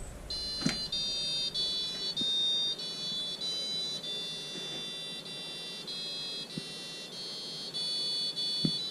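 Fisher & Paykel washing machine's control-panel beeper playing the national anthem as a melody of high electronic beeps, one held note after another at roughly two notes a second. This is the machine's hidden easter-egg mode, set off by holding a combination of panel buttons.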